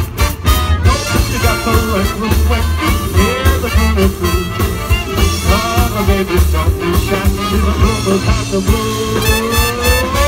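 Live swing band playing with a steady beat: saxophones, trombone and trumpet over drums and upright bass.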